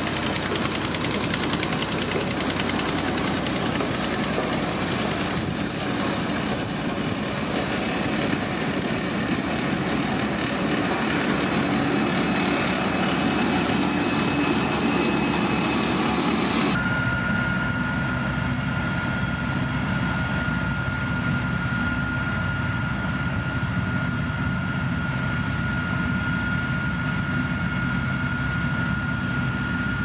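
Diesel engines of heavy road rollers running steadily as they compact a gravel roadbed. About halfway through the sound changes abruptly to a steadier engine note with a thin, steady high whine over it.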